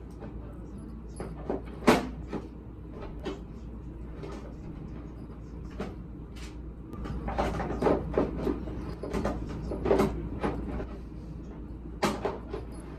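Irregular light knocks and clatters, the sharpest about two seconds in and near the end, with a busier run in the middle, over a steady low hum.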